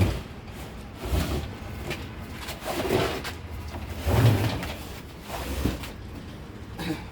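A boxed step ladder being slid out of its cardboard packaging: several uneven scrapes, rustles and low knocks, the loudest about four seconds in.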